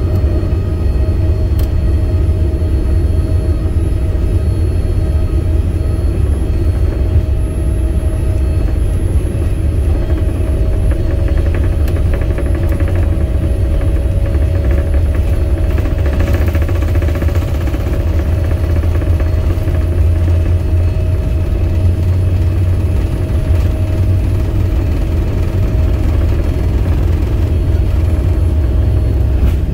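Cabin noise aboard a Boeing 787-9 jetliner: a loud, steady low rumble of engines and airflow with a steady whine above it.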